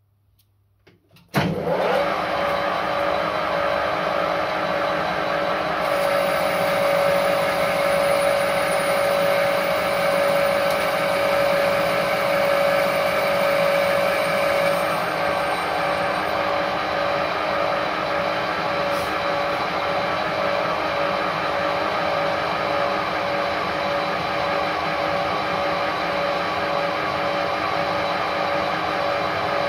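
Stanko 1A616 lathe switching on abruptly about a second and a half in, then running steadily, its headstock gears giving a strong steady whine over the motor.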